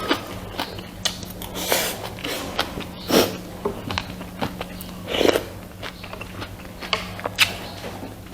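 Close-miked eating: chewing and biting rice and pork, with irregular wet mouth clicks and a few louder mouth noises. A steady low hum runs underneath.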